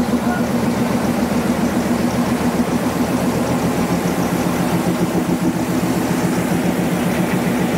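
Narrow-gauge diesel locomotive of the Darjeeling Himalayan Railway idling steadily, a loud, even low engine drone with a fast regular pulse.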